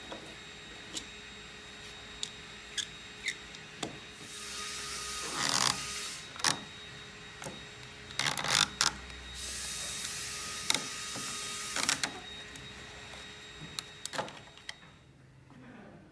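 Hand inking and printing a linocut: a rubber brayer rolling ink on a glass slab with an even sticky hiss, then a small 3D printed plastic roller press being loaded and rolled. Sharp clicks and clacks of plastic parts being handled come throughout, loudest in a cluster just past the middle.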